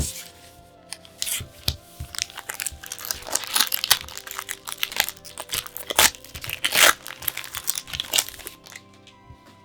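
Pokémon trading card packaging being torn open and crinkled by hand: a dense run of sharp tearing and crackling strokes that starts about a second in and dies away near the end.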